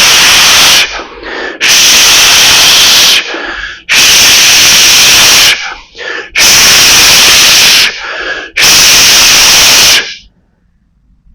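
A person doing a snake-style hissing breath: five forceful hissing exhalations, each about one and a half seconds long, with softer in-breaths between them. The hissing stops about ten seconds in.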